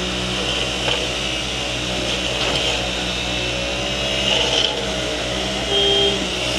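Concrete-pouring machine's engine running steadily under load, with a short high-pitched tone near the end.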